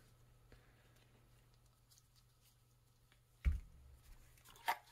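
Small metal parts being handled on a wooden workbench: faint light clicks, a dull knock about three and a half seconds in as a part is set down on the bench, and a sharper click near the end.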